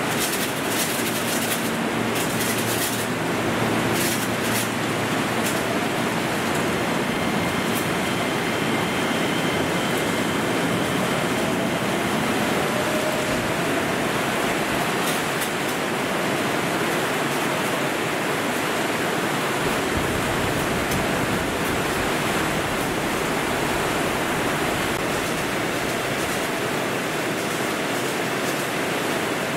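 Torrential downpour: heavy rain pouring down steadily as a loud, even hiss. Under it an electric commuter train pulls out of the platform, its motor whine rising faintly midway.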